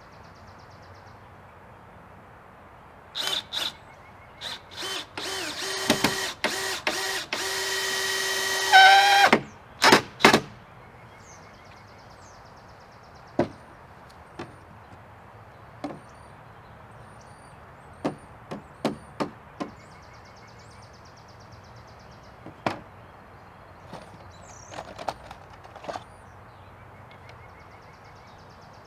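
Cordless drill driving screws into wood framing in several short runs, the longest about four seconds with its motor whine rising near the end. Afterwards, scattered knocks and clicks of tools being handled and set down on the plywood floor.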